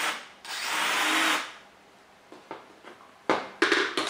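Brushless 1804 motors of an XK X252 quadcopter spinning up under throttle, with a steady whir for about a second. Then a pause, then a few short bursts of spin near the end.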